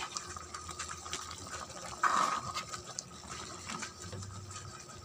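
A metal spoon stirring wet chicken pieces and curry powder in a metal pot: squelching, liquid sloshing with small scrapes and clicks against the pot, and a brief louder noise about two seconds in.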